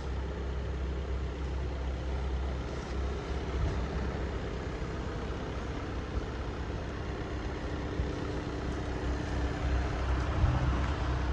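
Volkswagen Golf 1.6 TDI four-cylinder turbodiesel idling steadily, a low even rumble, growing a little louder near the end.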